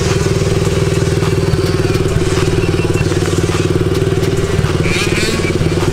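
Small youth dirt bike engine idling steadily with a rapid, even putter, warmed up and ready for a first ride.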